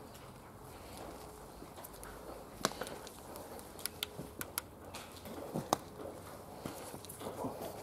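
Footsteps on a gravel- and litter-strewn tunnel floor: irregular sharp clicks and crunches, sparse at first and more frequent from about two and a half seconds in.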